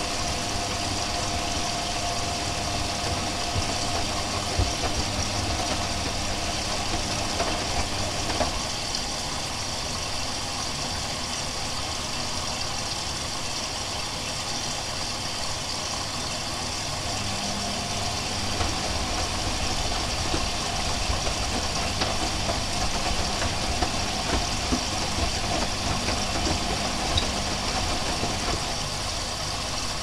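Hoover Quattro 1100 Autowasher front-loading washing machine tumbling wet laundry in water: a steady motor hum with water sloshing and scattered light knocks from the turning drum.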